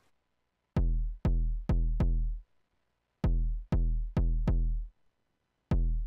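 Arturia DrumBrute drum machine kick drum played through a passive diode-clipping saturation box: deep thumps falling in pitch, in groups of four about half a second apart, with a pause of about a second between groups.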